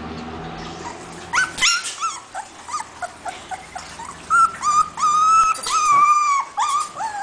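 Siberian husky puppy whining: a run of short, high whimpers, then longer drawn-out whines, with a final one rising near the end.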